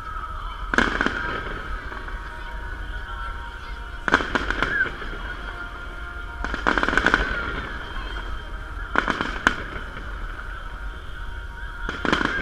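Fireworks salute: aerial shells bursting with sharp bangs and crackles, about five bursts a few seconds apart, some as quick strings of cracks, with steady background music between them.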